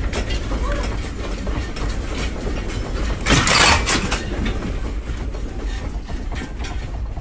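A house and its contents rattling in an earthquake: a steady deep rumble under many small clicks and clatters, with a loud burst of noise about three seconds in.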